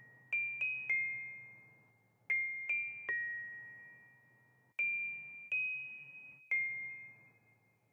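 Cylinder music box playing slowly: its comb plucks sparse, bell-like single notes in groups of three, each ringing clearly and fading away, and the last group dies out near the end.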